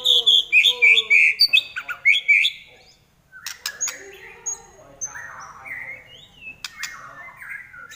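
White-rumped shama singing: a loud run of quick whistled and chattering phrases, a short break about three seconds in, then softer, scattered calls and whistles.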